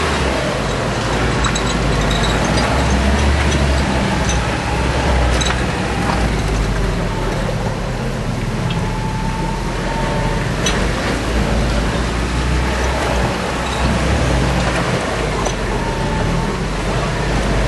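Off-road 4x4 truck engine running at low speed as it crawls a rough dirt trail, the low rumble swelling and easing, with a few short knocks and rattles over the bumps.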